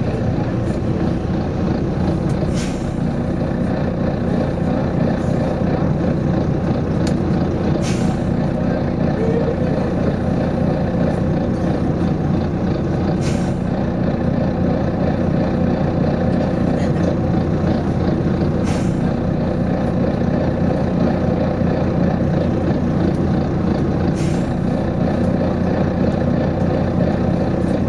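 Volvo B9TL double-decker bus, its 9-litre six-cylinder diesel running steadily, with a short hiss of compressed air about every five seconds from the bus's air system.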